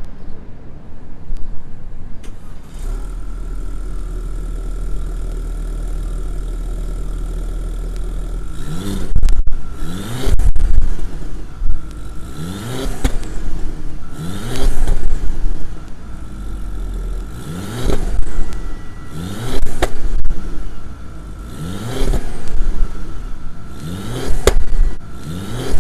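Audi A4 B8's turbocharged four-cylinder engine, with a gutted catalytic converter, idling steadily and then revved in a string of short blips, each sweeping up and quickly back down, about every two seconds.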